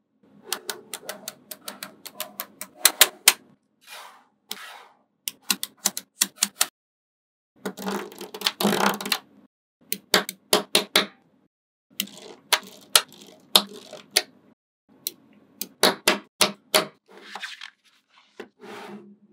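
Small neodymium magnet balls clicking as they snap together and are pressed into place, in quick irregular runs of sharp clicks. There is a denser rattling stretch about eight to nine and a half seconds in.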